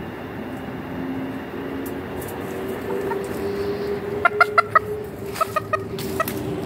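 Chickens clucking: a quick run of four short clucks about four seconds in, then a few more spaced clucks, over a steady low hum.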